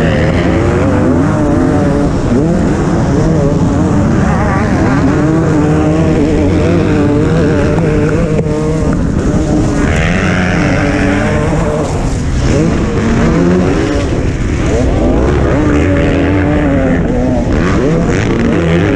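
MX1-class motocross bike engines at race pace, heard close up from a helmet-mounted camera: the rider's own engine revving up and dropping back over and over as it shifts and accelerates out of turns, with other bikes running close by.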